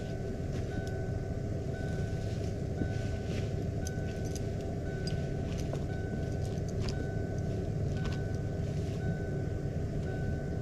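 Old Ford F-150 pickup truck idling steadily, with a repeating warning chime that dings about every three-quarters of a second. Faint scattered clinks of a tow chain being re-hooked.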